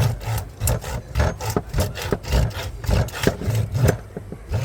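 Knife sawing back and forth through a large jack fish, a rasping stroke about three times a second.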